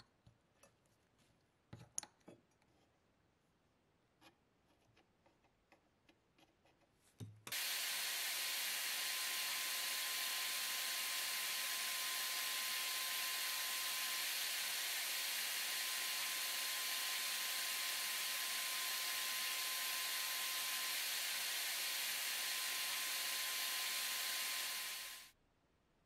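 A few faint clicks and taps, then a sandblasting gun in a blast cabinet starts a steady hiss of abrasive grit blown against small metal parts. The hiss holds even for about eighteen seconds and cuts off suddenly near the end.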